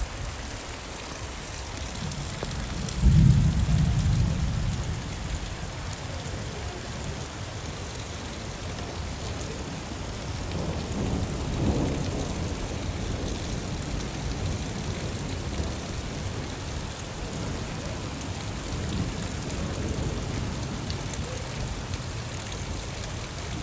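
Steady rain falling, with a loud low rumble of thunder about three seconds in that dies away over a couple of seconds, and a softer rumble around the middle.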